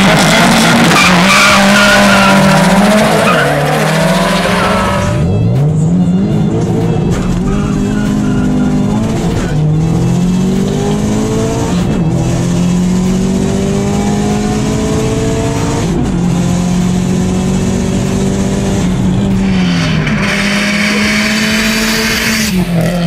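Turbocharged Subaru flat-four engines launching at full throttle off a drag start, with loud, harsh noise for the first few seconds. Then one car's engine, heard from inside, climbs in pitch through the gears and drops back at each shift, several times over.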